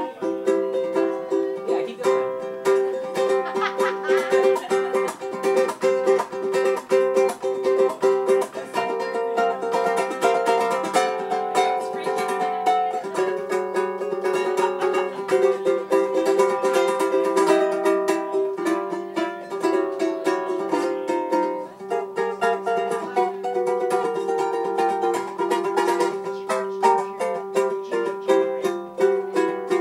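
A ukulele being played instrumentally, a steady run of plucked notes and strums without singing.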